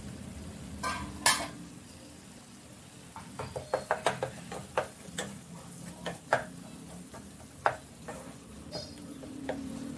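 A black slotted spatula stirring and scraping a thick tomato masala in a nonstick frying pan, with irregular clicks and taps against the pan over a soft, steady sizzle. The clicks come thickest from about three seconds in until near the end. The tomatoes have cooked down soft.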